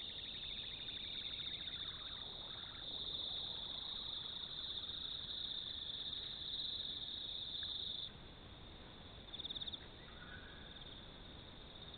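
Night insect chorus, crickets trilling steadily and densely, heard through a trail camera's band-limited microphone. The chorus cuts off abruptly about eight seconds in, leaving quieter outdoor background with one short pulsed chirp.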